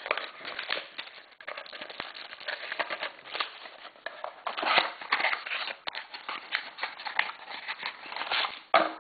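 Foil trading-card pack wrapper crinkling and tearing as it is opened by hand: a steady run of irregular crackles and small clicks.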